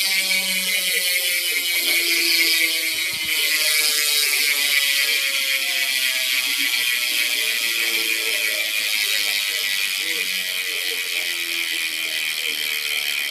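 BMX rear hub pawls ratcheting in a fast, continuous buzz of clicks as the wheel freewheels, the clicking gradually slowing as the wheel spins down.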